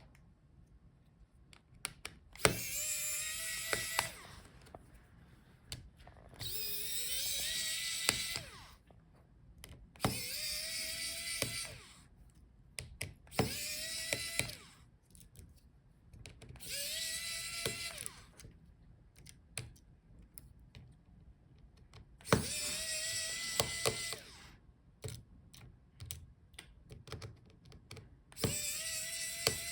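Electric screwdriver running in seven short bursts of one to two seconds each, the motor pitch rising quickly and then holding, as it backs out the screws holding the laptop's motherboard. Small clicks and taps between the bursts.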